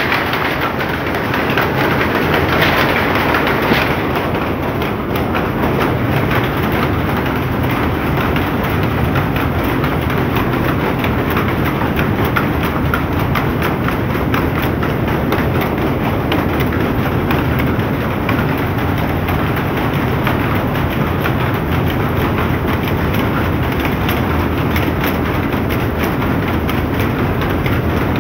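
Rows of powerlooms running together while weaving saree fabric, making a loud, steady, rapid mechanical clatter.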